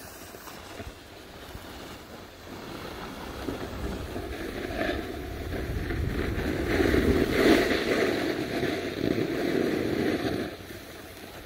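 Rushing wind noise on the microphone mixed with the scrape of a snowboard sliding over packed snow. It builds through the middle to its loudest and eases off near the end.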